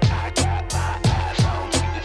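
Background music with a steady, heavy drum beat: deep kicks that drop in pitch and sharp snare-like hits about three times a second.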